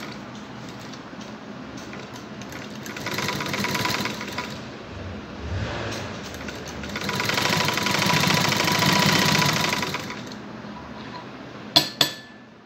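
Industrial lockstitch sewing machine stitching normally in two runs of fast, even rattling, a short one about three seconds in and a longer one from about seven to ten seconds, with a steady hum in between. Two sharp clicks come near the end.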